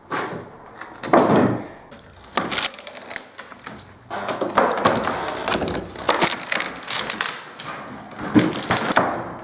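Old, water-rotted wooden floorboards creaking and cracking under load, with irregular knocks and thuds, coming thicker about halfway through.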